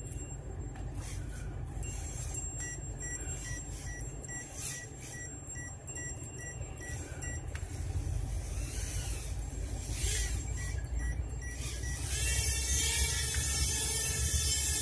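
Small electric motor and propeller of a homemade toy biplane running as it circles, with a steady low hum. About twelve seconds in it gets louder, with a high whine.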